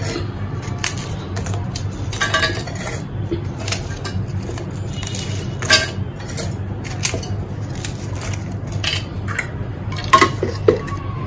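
Soft digestive biscuits being broken by hand and dropped into a stainless-steel mixer-grinder jar: scattered light cracks and clinks against the steel over a low steady hum. Near the end there is a brief run of louder clinks as crumbs are tipped from a glass bowl into the jar.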